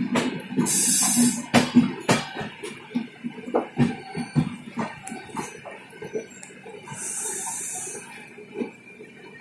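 Express train's wheels clattering over rail joints and points in irregular knocks over a steady running rumble, with two short bursts of hiss, about a second in and again around seven seconds in.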